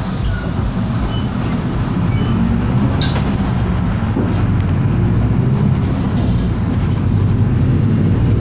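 City bus driving along, heard from inside the cabin: a steady low engine drone with road noise.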